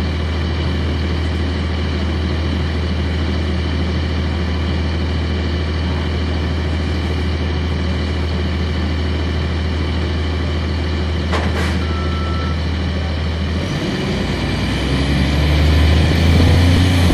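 Cummins ISC diesel engine of a 1999 Nova Bus RTS transit bus idling with a steady low drone, heard from inside at the back of the bus. About 11 seconds in there is a sharp click and a short beep, and then the engine revs up, rising in pitch and getting louder as the bus pulls away.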